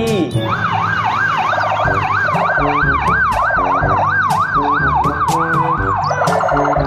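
Electronic police siren sweeping quickly up and down, about three times a second, over background music with a steady beat.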